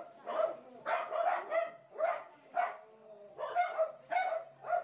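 A dog yipping and barking repeatedly, short high barks about two a second.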